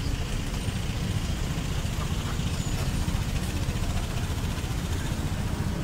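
Busy city street ambience: a steady low rumble of road traffic with no distinct single event.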